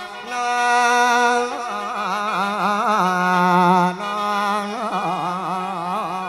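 Mor lam singing: a long, wavering melismatic vocal line over a steady drone from a khaen, the Lao-Isan bamboo free-reed mouth organ.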